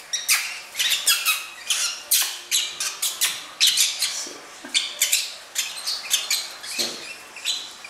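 Young rosy-faced lovebirds squawking in a rapid string of short, high calls, about three a second: the begging calls of chicks being hand-fed formula from a syringe.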